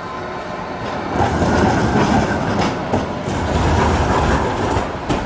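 Articulated low-floor tram passing close by, its wheels rumbling on the street rails with sharp clacks over the track joints, growing louder about a second in.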